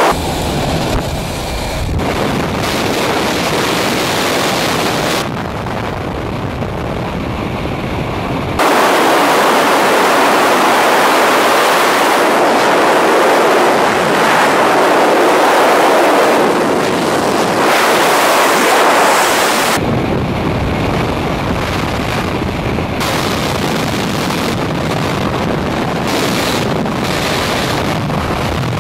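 Loud rushing wind of wingsuit freefall buffeting a body-mounted camera's microphone. The noise jumps louder about nine seconds in and eases back about twenty seconds in.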